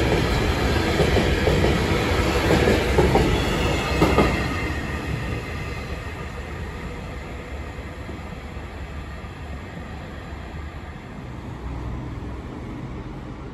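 Freight train of covered hopper wagons passing close by, its wheels rumbling and clattering over rail joints. The last wagon goes by about four seconds in, and the sound then fades as the train moves away.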